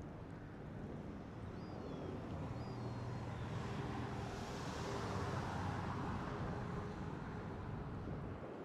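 Boeing 747-400's four Rolls-Royce RB211 jet engines at approach power as the airliner passes on final approach with gear down: a steady jet rumble and rush that swells to its loudest about midway and eases slightly toward the end.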